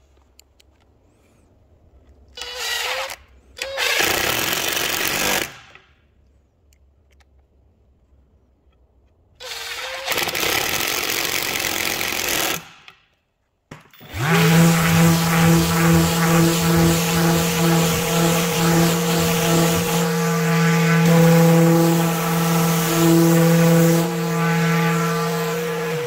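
A power drill spins up and runs in three short bursts in the first half, the frame's angled screw holes being worked. Then, from about fourteen seconds in, a random orbital sander runs steadily with a low hum and a whine over the oak tabletop, which is the loudest part.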